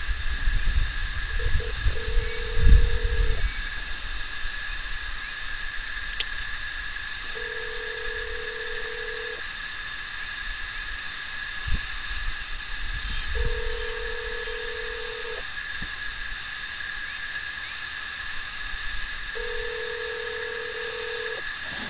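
Telephone ringback tone of an outgoing call: a steady tone of about two seconds, heard four times at six-second intervals while the line rings unanswered. There are a few low thumps in the first few seconds.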